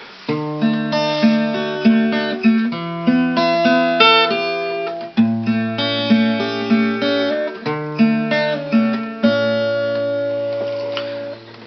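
Acoustic guitar introduction: chords picked out note by note over held bass notes, in a steady repeating pattern.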